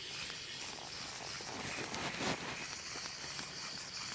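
Faint ice-fishing reel being wound and line handled as a hooked yellow perch is brought up through the ice hole: light clicks and rustling over a steady hiss, with one slightly louder rustle about two seconds in.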